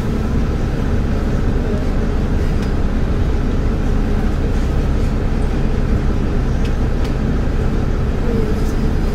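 Solaris Urbino 12 IV city bus running, a steady low engine and drivetrain drone.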